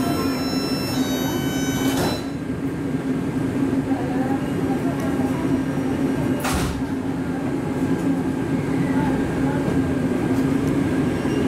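Taipei Metro C381 train's door-closing warning beeps sounding as the sliding doors shut about two seconds in, then a short sharp burst about six and a half seconds in, over the car's steady hum.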